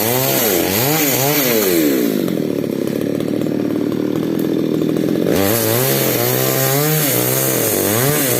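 Falcon mini chainsaw running, its pitch rising and falling repeatedly as the throttle is worked, with a steadier stretch in the middle as it holds speed.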